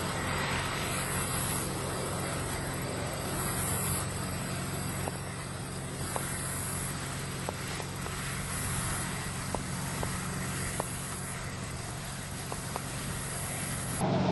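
Tassel-pulling machine running steadily with a low, even engine hum as it works through the corn, its pulling heads stripping tassels from the rows. A few faint clicks sound now and then in the second half.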